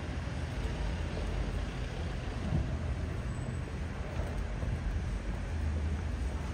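Steady street traffic noise from cars on the road beside the pavement, with a constant low rumble.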